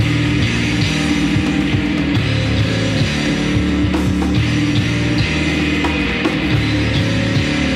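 Heavy psychedelic rock played by a band: distorted electric guitars, bass and a drum kit, loud and steady.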